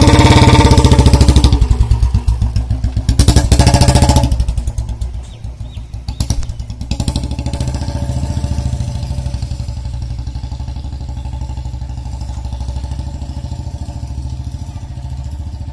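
Royal Enfield Bullet's single-cylinder four-stroke engine running close by and loud for the first four seconds. It then pulls away and fades to a steady, fainter running as the bike is ridden off.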